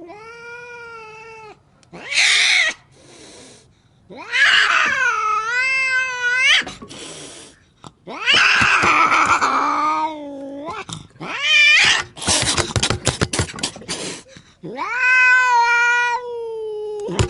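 Angry domestic cat yowling: several long, wavering, drawn-out caterwauls broken by short hisses, with a stretch of rapid sharp crackling about halfway through.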